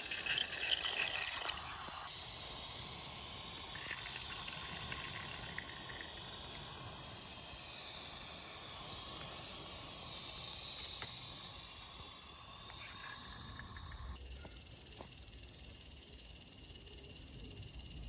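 Steady hiss from a small live-steam garden railway locomotive, dropping to quieter outdoor background about fourteen seconds in.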